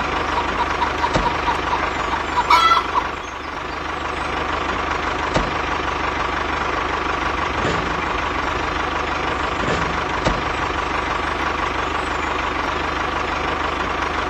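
A small motor running steadily with a constant whine over a low hum, and a few faint clicks.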